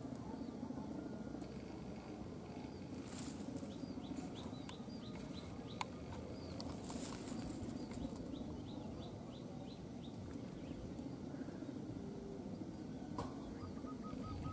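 Small birds chirping in short, quick runs of high notes twice, over steady outdoor background noise, with one sharp click near the middle and a fast string of lower notes starting near the end.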